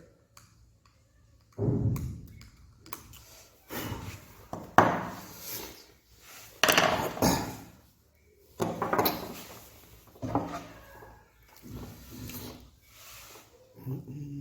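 Irregular knocks and scraping from objects being handled and set down, a dozen or so bumps of varying loudness with short pauses between.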